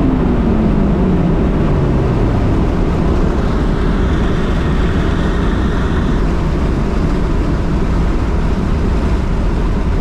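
Road and wind noise inside a turbocharged Acura RSX's cabin at highway speed. The engine note falls in pitch over the first two or three seconds as the revs drop.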